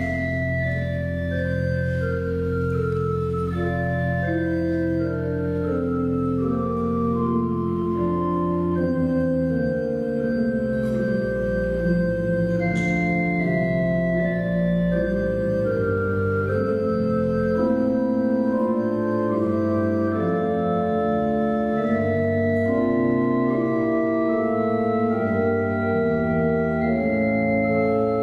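Church organ playing a slow piece in sustained, overlapping notes, with held low notes under melody lines that step downward and later climb again.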